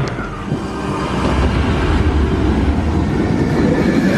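Manta launched roller coaster train running through its launch section: a steady rumble, heaviest in the low end around the middle.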